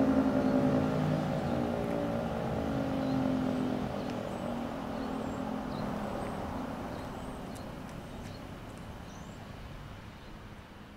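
Federal Signal 2T22B dual-tone rotating tornado siren winding down at the end of its full-alert steady tone: the chord of tones slowly falls in pitch and fades away as the rotor coasts to a stop.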